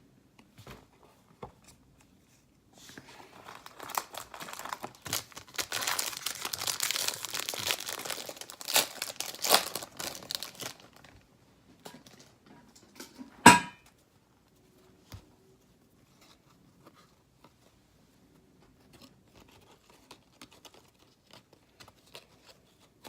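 Hockey card pack wrapper being torn open and crinkled for several seconds, followed by one sharp knock and a few light clicks and rustles as the cards are handled.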